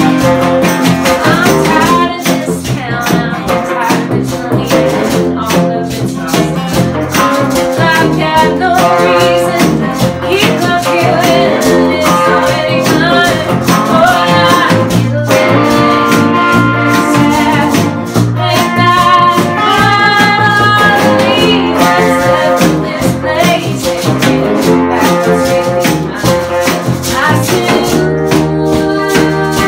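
Small folk-soul band playing live: a woman singing lead over strummed acoustic guitar, with electric guitars and bass.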